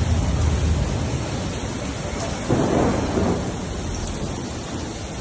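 Storm-force wind buffeting the microphone over rough, rushing sea, with a heavy low rumble throughout. A louder rush about two and a half seconds in lasts roughly a second.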